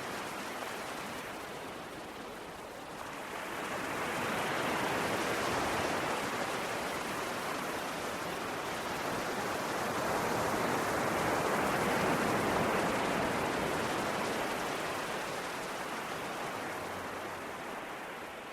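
Sea waves washing ashore: a slow swell of surf that builds about three seconds in, holds, and slowly recedes toward the end.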